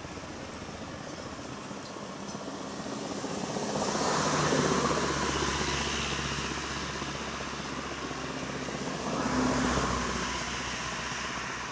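Motor vehicles on the road: steady engine hum, with engine and tyre noise swelling as a vehicle passes about four seconds in and fading away, then a second shorter swell around nine seconds.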